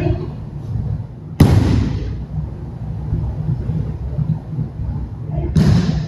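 A body slamming onto a training mat as an aikido partner is taken down to the floor, a sharp impact about a second and a half in. A second sharp slap on the mat comes near the end, as the pinned partner lies face-down.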